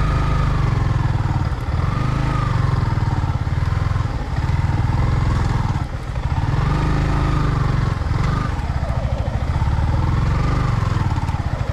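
Motorcycle engine running under load while ridden off-road, its pitch rising and falling as the throttle is opened and eased every few seconds. There are brief drops in level about four, six and eight seconds in.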